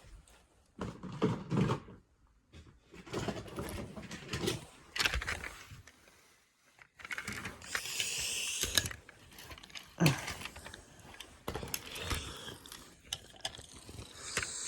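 Small toy cars being handled and rolled: irregular clicks and rattles in short bursts, with brief pauses between them.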